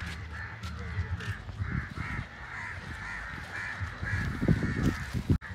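Birds giving harsh cawing calls in a rapid run, about three a second, with several low thumps about four to five seconds in.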